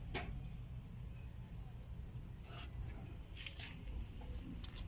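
Faint low rumble with a few soft scuffs and taps: footsteps and handling noise of a hand-held camera being carried along a dirt path.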